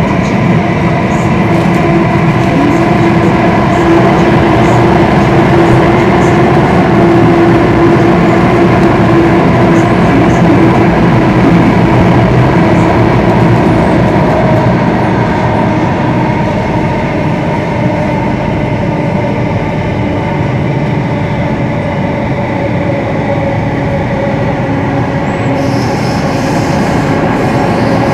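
Inside a Singapore MRT train car running through a tunnel: steady rumble of wheels on rail with a motor whine. It eases a little about two-thirds of the way in and picks up again near the end.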